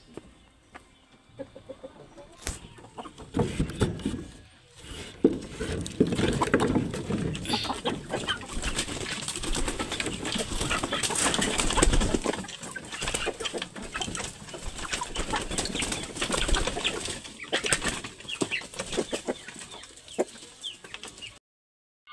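A flock of hens clucking and flapping their wings as they crowd in to feed, the noise building up about three seconds in.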